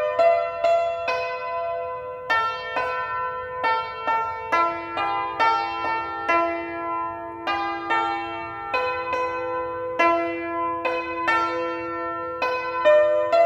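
Yangqin (Chinese hammered dulcimer) struck with bamboo mallets, playing a slow melody of single notes that ring on after each strike. From about a third of the way in, a lower note keeps sounding under the melody.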